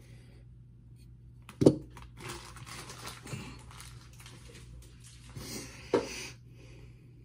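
Plastic toy packaging rustling and crinkling as a small playset piece is unwrapped, with a sharp knock about a second and a half in and another near the end.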